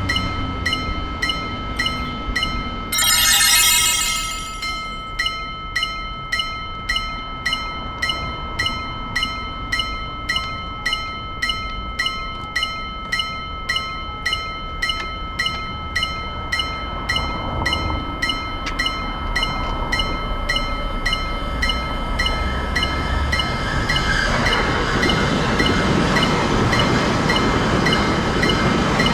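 Japanese railroad crossing alarm ringing its repeated 'kan-kan' bell, about two strikes a second. About three seconds in there is a louder shrill sound lasting a second or so. Near the end a train's running noise grows louder under the bell.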